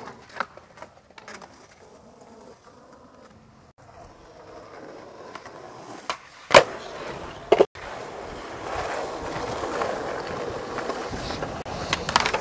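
Skateboard wheels rolling on concrete, with the sharp pops and clacks of the board hitting the ground during tricks; the loudest clack comes about six and a half seconds in, followed by another a second later, and the rolling grows louder near the end.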